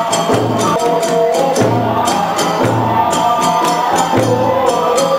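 Kagura hayashi ensemble playing: rapid clashing of tebyōshi hand cymbals over regular beats on a large barrel drum, with a bamboo flute holding a melody above.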